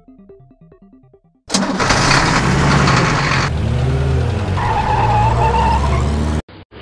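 Soft musical notes, then about a second and a half in a loud cartoon monster-truck engine sound effect starts up and revs, its pitch rising and falling, before cutting off abruptly near the end.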